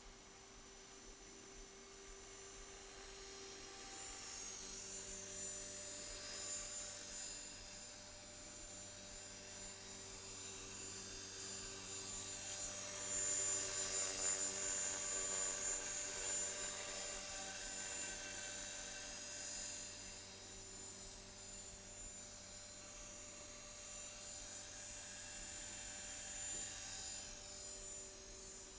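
Align T-Rex 450 Pro electric RC helicopter in flight: the high-pitched whine of its motor and rotor, growing louder to a peak about halfway through as it passes close, then easing off.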